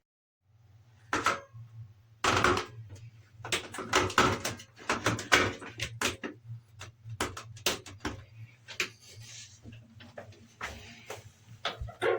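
Plastic shower-head parts clicking and knocking irregularly as they are handled, over a steady low hum.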